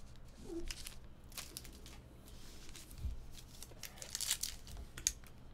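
Foil trading-card pack wrapper crinkling and tearing as it is handled and ripped open, in several short crackly bursts, the loudest about four seconds in.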